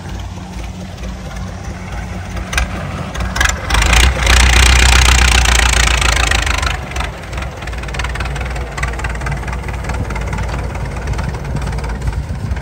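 Massey Ferguson 185 tractor's diesel engine running with a steady low drone. About four seconds in it grows louder for roughly three seconds, with a rushing noise over it and a few sharp knocks just before, then settles back.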